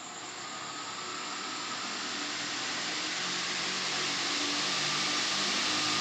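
Minmax Activa 600 mm four-blade ceiling fan running on test: a steady rush of air from the spinning blades with a faint motor hum, growing steadily louder.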